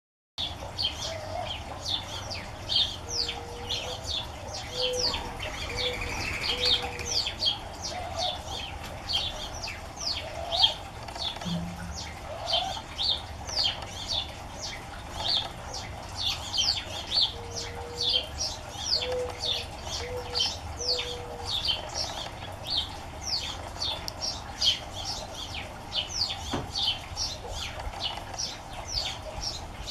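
Mourning dove cooing its song twice, each time a longer first coo followed by three shorter low coos. Behind it, other small birds chirp rapidly and continuously.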